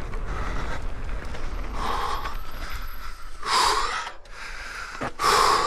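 Mountain-bike rider breathing hard, a heavy breath about every second and a half with the loudest two near the end, over a low wind rumble on the microphone.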